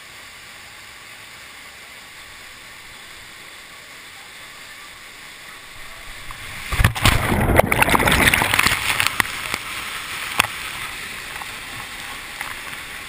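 Whitewater rushing steadily down a rock gorge. About two-thirds of the way in, a loud burst of splashing water and knocks right at the microphone lasts a few seconds, then the rushing goes on, a little louder.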